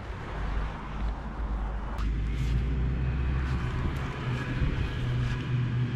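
Steady low engine hum of a road vehicle, with a few faint knocks.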